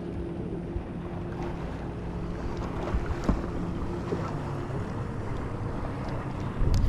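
Boat motor running with a steady hum, its pitch dropping slightly about five seconds in, over wind noise on the microphone. A couple of sharp knocks about three seconds in.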